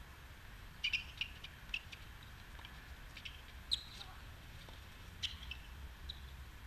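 Doubles tennis rally on a hard court: racket strikes on the ball and bounces as sharp clicks about a second or more apart, along with brief squeaks from sneakers on the court surface, over a low steady rumble.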